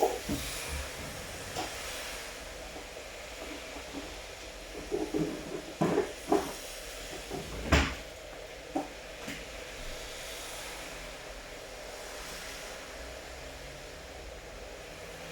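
Steady rainfall as an even hiss, with a few irregular sharp knocks and taps, mostly clustered a third to halfway through.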